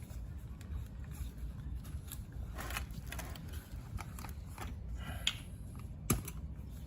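Faint handling noises from working with an oil bottle and a new oil filter: scattered light clicks and scrapes, with one sharper click about six seconds in.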